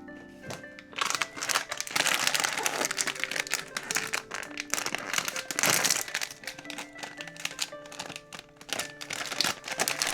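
Packaging crinkling and tearing as a plush toy is pulled open by hand, in dense bursts, over steady background music.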